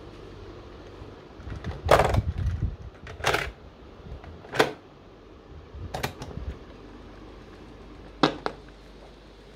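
Sankyo portable cassette radio recorder being worked by hand: a string of sharp plastic clicks and clunks about a second apart as the cassette door is opened and shut, ending in a quick double click as a piano-key button on top is pressed down.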